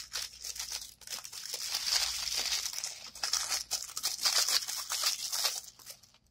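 Clear plastic bag crinkling and rustling with small clicks as it is handled, dying away near the end.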